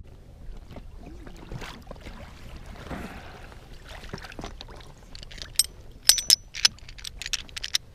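Sharp metallic clicks and clinks with a brief ringing, from a folding metal multi-tool being opened and worked in the hand, coming thick in the last two or three seconds. Before that, only faint water sounds against the kayak.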